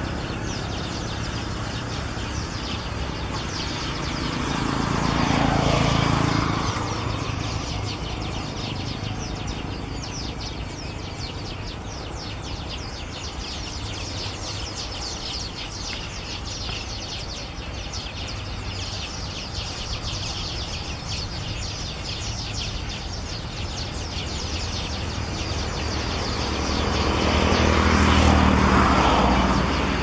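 Outdoor ambience: a steady rush with dense high chirping throughout, and a vehicle passing by twice, swelling and fading about five seconds in and again near the end.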